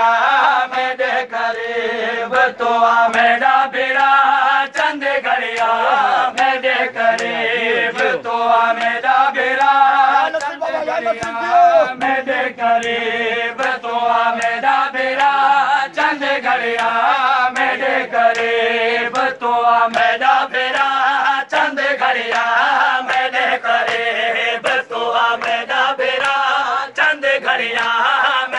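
A group of men chanting a noha, a Muharram lament, in unison, over regular slaps of open-handed chest-beating (matam).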